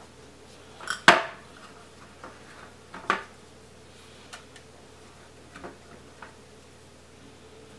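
Light kitchen handling sounds: two sharp clicks about one and three seconds in and a few faint taps, as wonton wrappers are peeled off a stack and pressed into a metal muffin pan on a glass-top stove.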